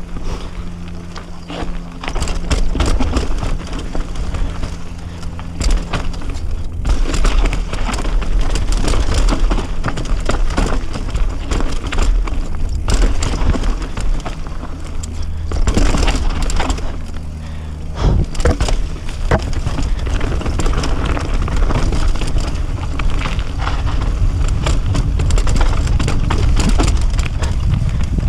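Mountain bike riding fast down a rough forest dirt trail: a steady low rumble of wind on the microphone, with continual clatter and knocks as the tyres and bike run over dirt, roots and rocks.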